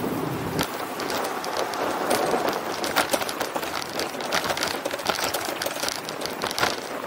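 Riding a bicycle on city streets: a steady rush of road noise with many small rattles and clicks.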